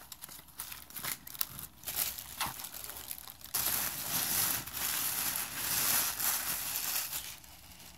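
Wrapping paper being rustled and crumpled by hand: scattered crinkles at first, then a denser, continuous rustling from about three and a half seconds in, dying down near the end.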